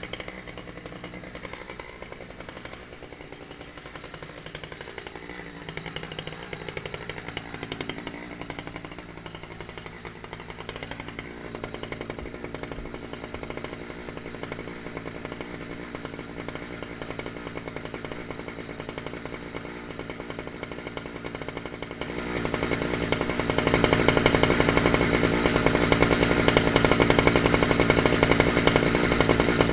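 Chainsaw running at a lower, uneven speed, then revving up to a much louder, steady high-speed buzz about two-thirds of the way through.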